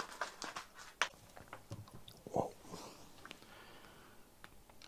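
Small clicks and knocks of a circuit board and soldering iron being picked up and handled on a workbench, mostly in the first second and a half.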